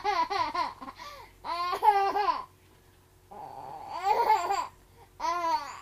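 A baby and a young girl laughing together in repeated short bursts of giggles.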